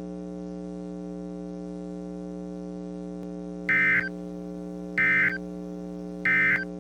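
Three short EAS/SAME end-of-message data bursts, each a fraction of a second of warbling digital tone about a second and a quarter apart, closing a weather radio alert over a steady electrical hum.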